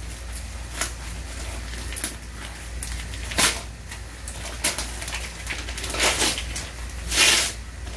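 Clear plastic packaging crinkling and rustling in short bursts as a gift is unwrapped by hand, loudest about three and a half seconds in and again near the end.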